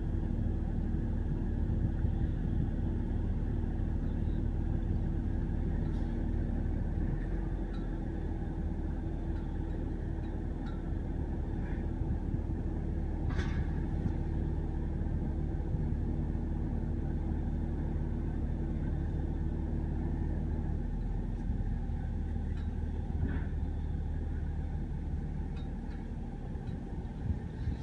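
Truck engine running steadily with a low hum; its note changes twice, and a few faint clicks and knocks come over it.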